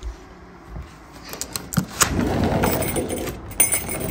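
A sliding glass patio door is opened and a dog comes in, setting the strap of jingle bells hanging on the door jingling and rattling. It is quiet at first; the clicking starts about a second and a half in and turns into busy jingling and clattering.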